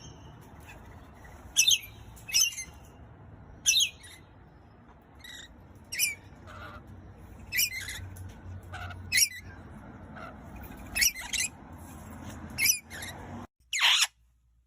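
Pet parrot giving short, high squawks and chirps roughly once a second, with a louder call near the end.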